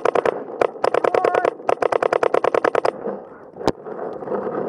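Paintball marker firing rapid strings of shots, about a dozen a second, in three bursts over the first three seconds. Then a single sharp knock, followed by scuffing noise as the camera drops to the ground.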